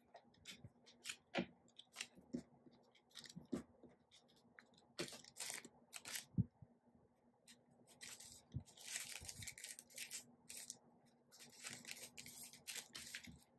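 Light clicks, taps and slides of thin photocards being picked up from a table and squared into a stack, then denser crinkling of clear plastic packaging near the end.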